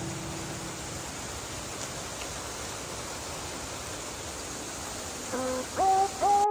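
Steady hiss of rain falling. About five seconds in, a few electronic notes of background music begin.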